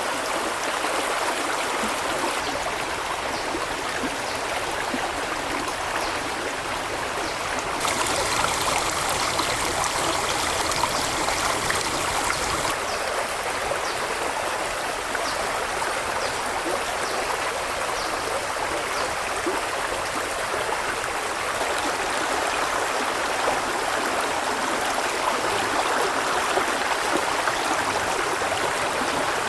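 Stream water flowing and rushing steadily, with an abrupt change in its tone about 8 seconds in and again near 13 seconds.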